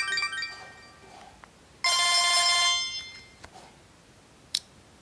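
Samsung GT-E1150 mobile phone playing ringtones through its loudspeaker. The last notes of a falling melody fade out, then a single bright electronic tone rings for about a second, followed by one sharp click near the end.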